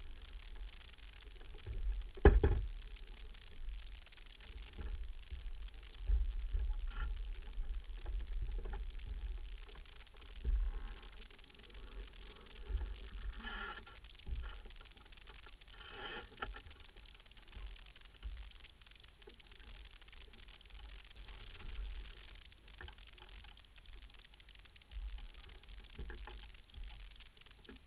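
Wind buffeting the microphone aboard a sailboat under way, with a faint wash of water and scattered knocks from the boat. The loudest is a sharp knock about two seconds in.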